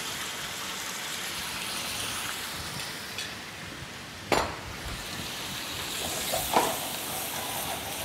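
Lamb, tomatoes and potato wedges sizzling steadily in oil and white wine in an aluminium frying pan over a gas flame. There is a sharp knock about four seconds in and a lighter one a couple of seconds later.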